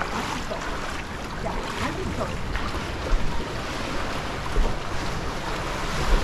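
Surf washing steadily over a shallow rocky shore, with gusts of wind buffeting the microphone in low thumps.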